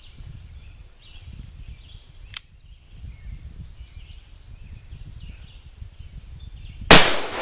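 Quiet outdoor ambience with faint bird chirps and a brief click, then near the end a single loud shot from a .44 Colt 1847 Walker cap-and-ball revolver, with a long echoing tail.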